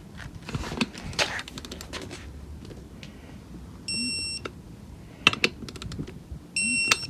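Digital torque wrench beeping twice, a short half-second beep each time, as it reaches the set torque of 15 foot-pounds on a beadlock ring bolt, with clicks and knocks of the wrench being worked between the beeps.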